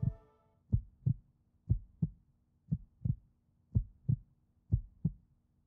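Heartbeat sound: steady paired low thumps, lub-dub, about once a second.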